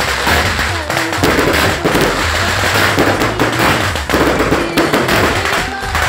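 Firecrackers going off in a rapid, continuous string of loud cracks and pops.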